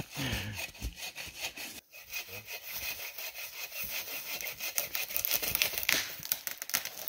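Hand saw cutting through a dead tree trunk in steady back-and-forth strokes, with a brief break about two seconds in.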